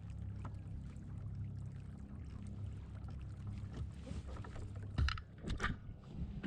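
Hobie Pro Angler 14 kayak underway, with a steady low rumble of the boat moving through the water. A few sharp knocks and rattles come about five seconds in.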